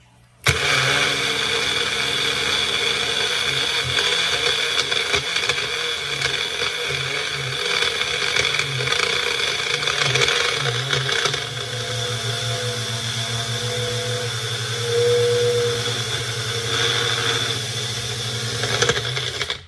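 Magic Bullet blender motor running at full speed, its blades grinding granulated sugar into powdered confectioner's sugar, with a gritty rattle over the motor's whine. It switches on about half a second in, runs steadily for about nineteen seconds, and cuts off just before the end.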